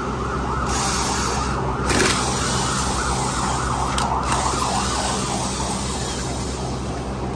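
A cordless impact tool runs in three bursts on the mounting bolts of a car air-conditioning compressor. A wavering, siren-like tone sounds under it.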